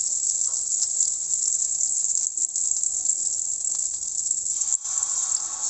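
Butter sizzling as it melts in a stainless steel pan on the stove: a steady high-pitched crackling hiss.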